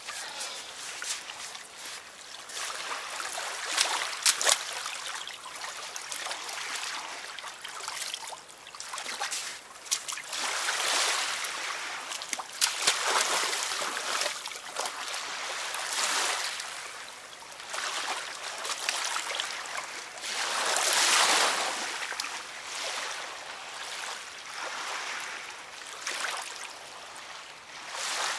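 River water lapping and splashing at the bank, swelling up every few seconds, with a few sharp clicks about four seconds in.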